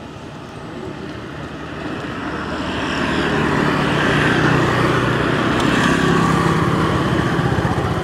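A motor vehicle going past: its engine grows louder to a peak through the middle and fades near the end.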